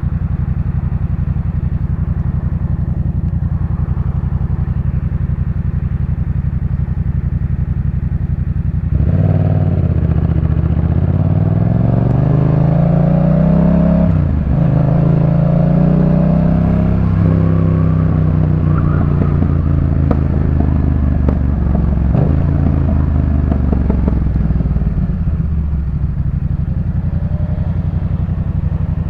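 2018 Yamaha MT-07's 689 cc parallel-twin engine through a Jeskap K4 full exhaust system. It idles steadily, then about nine seconds in it pulls away with the revs rising, drops at a gear change about five seconds later, and rises again. It then eases off and settles back to idle near the end.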